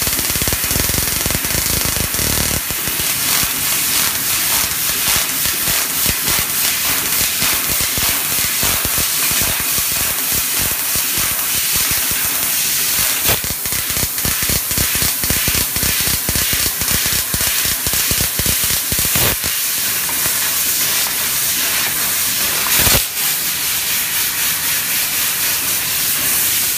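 Fiber laser cutting machine cutting sheet metal: a loud, steady hiss with dense, rapid crackling from the cut, and a few sharper pops, the loudest toward the end.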